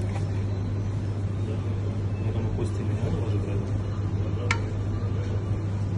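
Steady low mechanical hum of kitchen machinery, with one sharp click about four and a half seconds in as a knife sets a slice of roast beef onto a steel tray.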